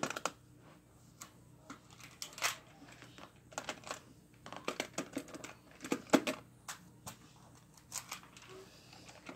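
Plastic magnetic building tiles clicking and clacking as they are handled, snapped together and taken from a stack: a run of irregular sharp clicks, the loudest about two and a half seconds in and a cluster around six seconds.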